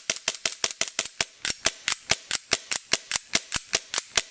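Airsoft gas-blowback Glock 17 pistol firing a rapid, evenly spaced string of sharp cracks as the slide cycles on each shot. The repaired trigger bar now engages the sear, so the hammer is released every shot.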